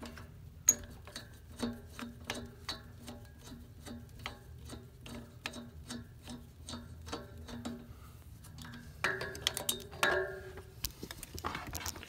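A screwdriver turning out the screw that holds a steam radiator valve's handle, with regular metallic ticks about twice a second. Near the end there is a louder scraping as the handle is worked loose. The handle spins freely without turning the valve stem because its square insert is broken.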